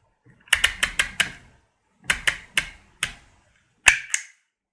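Handheld embossing label maker (letter pliers) clicking and ratcheting as letters are dialled and pressed into the tape. The clicks come in short bursts of three or four quick ones, with one sharper, louder click near the end.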